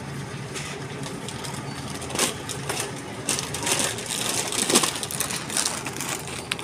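Supermarket background noise: a steady low hum with scattered rustling, clicks and clatter, the loudest a few seconds in.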